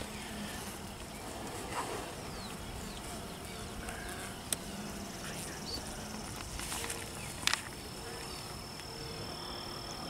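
Honeybees buzzing around an open hive, with bees flying past in short low hums. Two sharp clicks come as a wooden frame is gripped and worked loose with the hive tool, about halfway through and again a few seconds later. A steady high-pitched insect tone sets in near the end.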